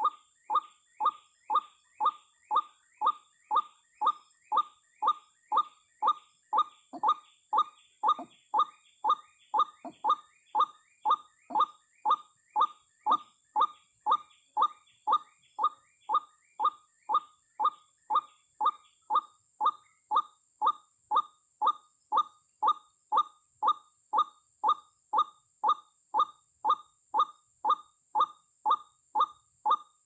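White-breasted waterhen (ruak-ruak) call, a short downward-sweeping note repeated very evenly about twice a second: a looped lure recording played through a speaker to draw waterhens to a snare line. A faint steady high-pitched hiss runs underneath.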